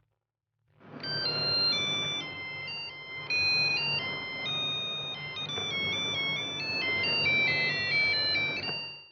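Electronic alarm melody from an LED message-board alarm clock: a tune of high, stepping beeping notes that starts about a second in and plays for about eight seconds.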